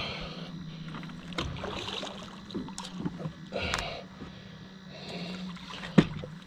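A big flathead catfish being reeled up to the boat on a heavily bent rod: scattered clicks and rustling from the reel and rod handling over a steady low hum, with a single sharp knock near the end as the fish reaches the surface.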